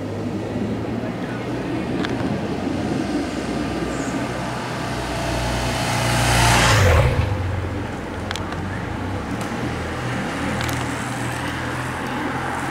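A motorcycle's engine hums steadily as it approaches, grows loud as it passes close by about seven seconds in, then fades as it moves away.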